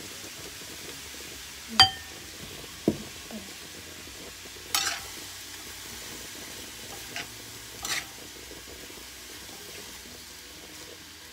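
Rice noodles and bean sprouts sizzling steadily in a stainless steel frying pan while being stirred and tossed with wooden utensils. A few knocks and clicks come through, the loudest a sharp ringing clink about two seconds in.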